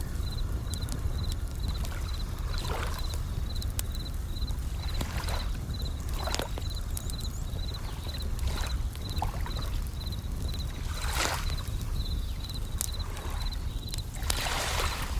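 Japanese bell crickets (suzumushi) chirping in short, evenly spaced high pulses at one pitch, about three a second, over waves washing in every two to three seconds. Sharp crackles from a wood campfire come now and then, over a steady low rumble.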